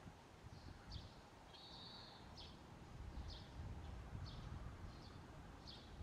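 Common kingfishers calling: a faint series of short, high, sharp calls about once or twice a second, with one longer drawn-out call about a second and a half in, over a low rumble.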